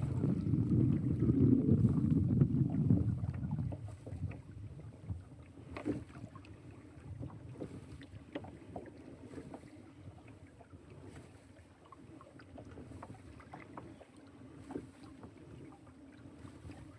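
Pedal-drive kayak moving along the water. Wind rumbles on the microphone for the first three or four seconds, then it goes quieter: water lapping against the hull, scattered small splashes and ticks, and a faint steady hum.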